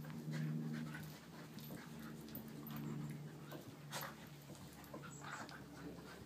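A puppy and an adult dog playing, panting and scuffling, over a steady low hum. A sharp click comes about four seconds in.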